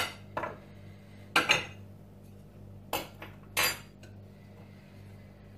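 Kitchen utensils and small dishes clinking and knocking against glass and metal: about five or six sharp separate clinks, some in quick pairs, as ingredient containers and spoons are handled around a glass mixing bowl.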